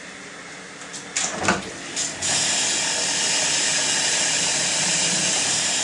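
Darkroom film or print processing machine being started: a few clicks and a sharp knock, then from about two seconds in the machine runs with a steady, even whirring hiss.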